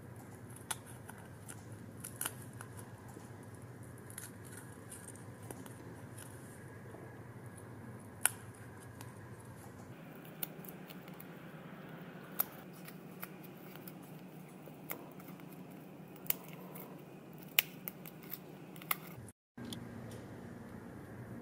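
Irregular small sharp clicks and ticks of a thin metal tool against the paper-craft bathtub piece, pressing its tabs into the slots round the rim, over a faint steady hum.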